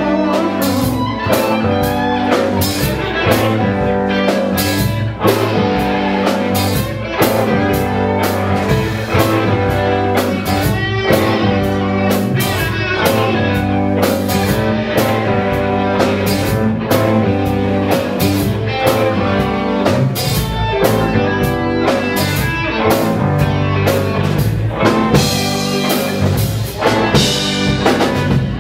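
Live rock band playing an instrumental passage of a blues-rock song: guitar over bass and a drum kit keeping a steady beat.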